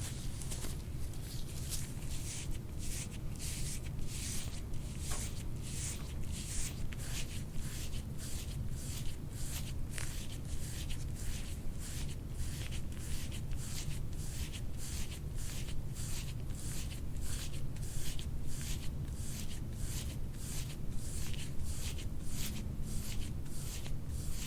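Hands massaging the piriformis muscle in rhythmic rubbing strokes, a soft swish about two to three times a second, over a steady low hum.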